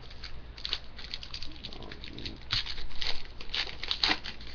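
Trading cards being handled and flicked through by hand: a run of crisp clicks and rustles, busiest in the second half.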